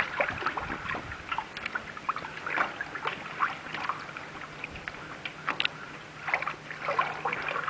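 Water sloshing and splashing in many short, irregular strokes as a rag wipes algae off a steel piece held in water, over a faint steady low hum.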